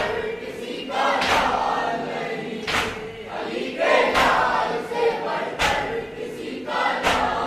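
Group of male voices chanting a noha, a Muharram lament, together, cut by sharp slaps in unison about every second and a half: hands striking chests in matam.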